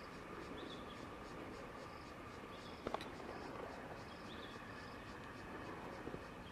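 Outdoor ambience: a steady hiss with faint, short, high chirps repeating a few times a second at two alternating pitches, and one sharp click about three seconds in.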